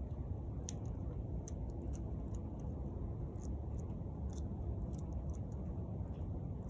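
Outdoor background noise: a steady low rumble with faint, sharp clicks scattered irregularly through it.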